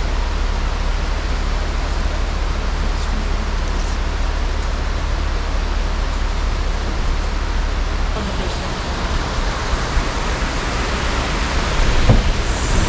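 Creek water rushing over rocks, a steady loud hiss.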